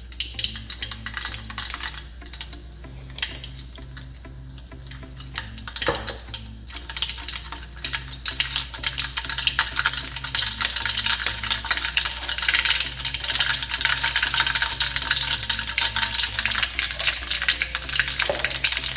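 Mustard seeds sizzling and popping in hot olive oil, a crackle of quick pops that starts sparse and thickens into a dense continuous spluttering about eight seconds in, the sign that the oil is hot enough and the seeds are bursting.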